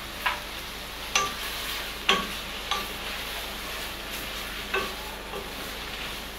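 Lobster pieces sizzling as they brown in butter in a frying pan, with a wooden spoon knocking and scraping against the pan several times as they are stirred.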